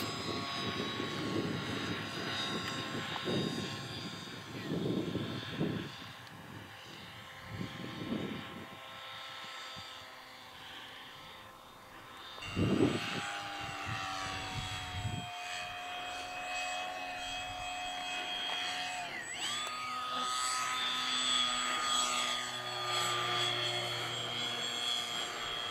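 Radio-controlled model airplane's motor and propeller whining as it flies, the whine dipping and then rising in pitch about two-thirds of the way through. Gusts of wind buffet the microphone in the first few seconds.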